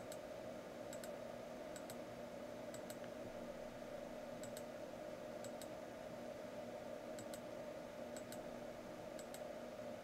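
Computer mouse button clicking about once a second, each click a quick press-and-release pair, over a steady faint hum.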